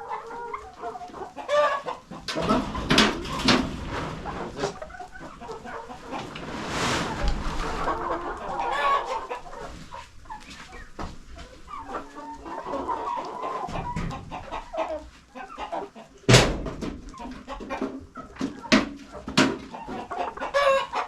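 Domestic chickens clucking, with many short calls throughout. About sixteen seconds in there is one loud, sharp knock.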